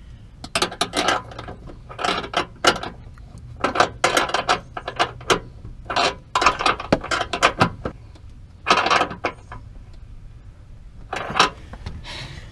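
Ratchet wrench clicking in about six short bursts with pauses between, as the nuts on a battery tray's mounting bolts are run down and tightened.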